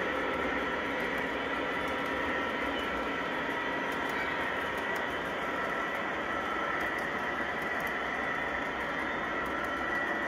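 O-gauge model autorack train rolling steadily along the layout's track, a continuous rolling rumble of wheels on rail with a steady whine running through it.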